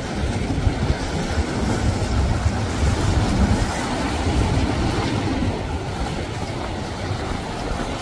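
Large motor yacht passing close at low speed, its engines running with a steady low rumble under the wash of water.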